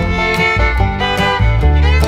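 Background country-style music track with a fiddle lead over guitar and a steady bass line.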